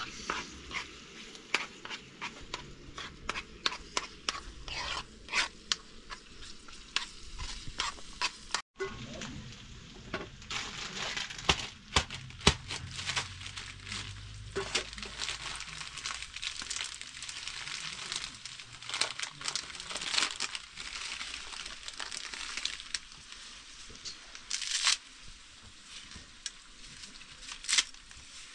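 A steady sizzling hiss with many scattered clicks and knocks, broken briefly about nine seconds in.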